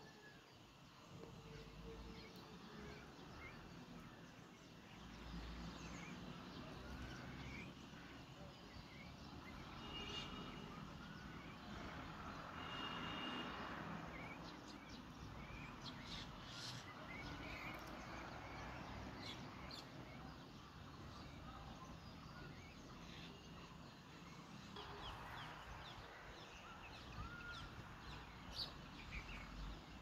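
Faint chirping of small birds: many short, scattered calls over a soft outdoor hiss that swells twice.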